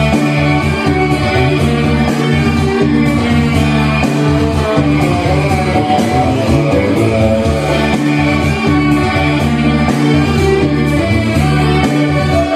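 Pop-rock song playing, led by guitar over a steady bass line, with little or no singing.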